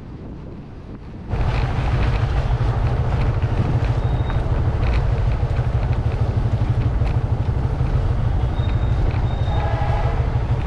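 Riding a motorcycle, heard from the rider's own microphone: a steady, fluttering wind rumble mixed with engine and road noise. It starts abruptly about a second in.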